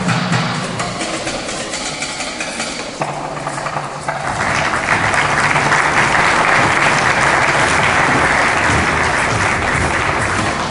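Stomp-style percussion: hands and sticks striking metal and plastic buckets and their lids. About four seconds in, louder audience applause rises and carries on over the drumming.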